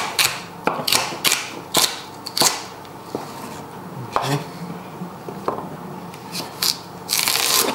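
Chef's knife chopping celery on a wooden chopping board: a quick run of sharp knocks of the blade on the board, about three a second, then slower, scattered cuts. A short rasping sound near the end.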